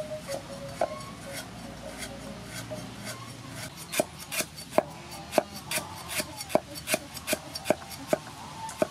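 Broad-bladed knife slicing lemongrass stalks on a round wooden chopping board: a run of sharp chops on the wood, soft at first and louder and regular from about four seconds in, roughly two to three a second.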